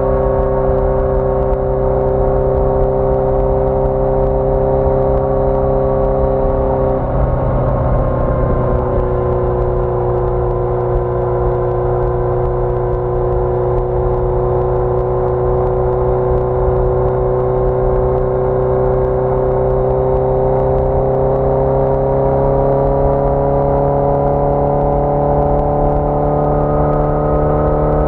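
1981 Yamaha XJ650 Maxim's inline-four engine running steadily under way. About seven seconds in the note breaks for a moment at a gear change. It comes back at a lower pitch, then slowly rises as the bike gathers speed.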